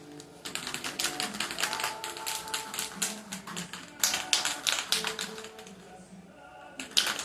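Quick, irregular tapping and clicking of a paintbrush on metal, several taps a second with brief pauses, over faint background music.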